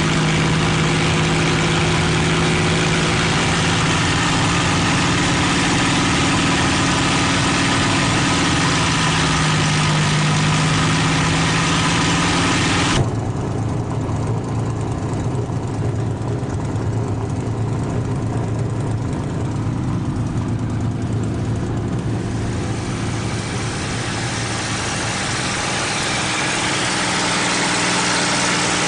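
P-51D Mustang's Packard V-1650 Merlin V-12 running steadily, heard from inside the cockpit with wind noise. About halfway through, the sound abruptly turns duller and the engine's tone drops lower. Near the end the tone rises again and the hiss comes back.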